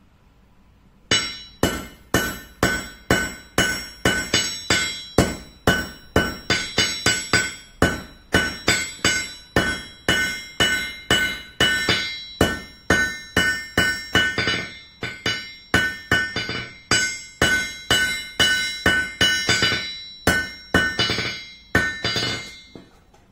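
Hand hammer striking a red-hot bar on an anvil: a steady series of blows, about two to three a second, each with a bright metallic ring. The hammering starts about a second in and stops just before the end.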